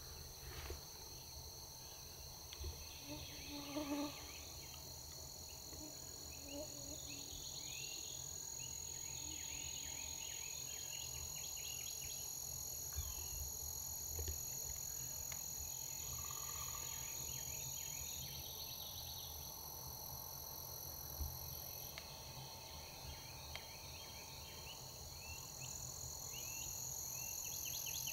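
Dawn chorus of insects trilling steadily in several high, even tones, with scattered songbird chirps throughout and a short, lower call about four seconds in.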